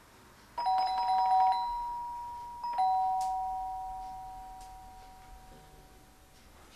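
Apartment doorbell rung twice, about two seconds apart. Each ring strikes two tones, the first with a rapid rattle for about a second, and the second rings out slowly for several seconds.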